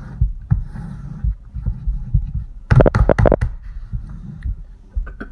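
Wooden soap mold with silicone liners being handled and shifted on a table: low rumbling handling noise, with a quick run of sharp knocks about three seconds in.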